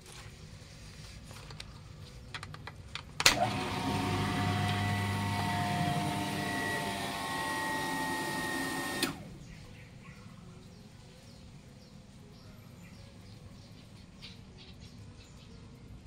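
Panasonic A-130JACK water pump switching on with a click about three seconds in, running steadily for about six seconds, then cutting out abruptly with a click as the new pressure switch reaches its cut-out pressure: the pump is cycling on and off correctly.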